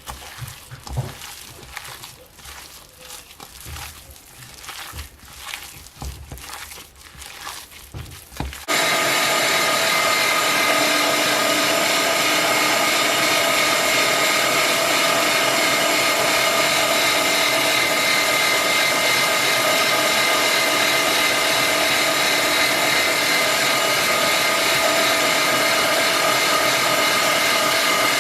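Quiet handling sounds of raw minced pork being mixed by hand, then about nine seconds in an electric kitchen machine's motor starts suddenly and runs steadily and loudly with a constant whine.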